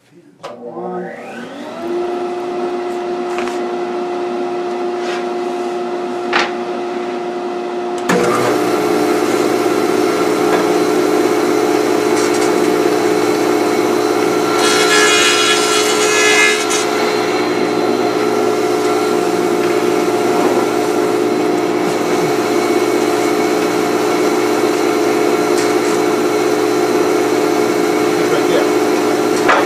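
Thickness planer's motor spinning up over about two seconds, then running with a steady hum. About eight seconds in a second motor joins and the noise steps up. From about fifteen seconds, a thin board on a backing board passes through the cutterhead for a couple of seconds: a rough, rhythmic, higher-pitched cutting sound over the running machine.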